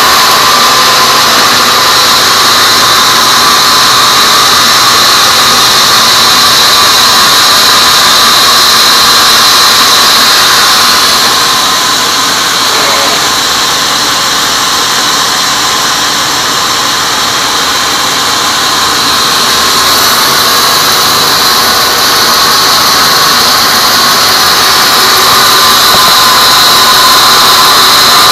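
Large band sawmill blade cutting through a teak log: a loud, steady whine with a rasping hiss. It eases slightly for several seconds in the middle, then comes back up.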